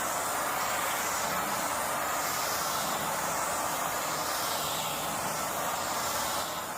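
Gas torch burning with a steady hiss, heating the car's quarter-panel sheet metal to work out a dent. It fades near the end.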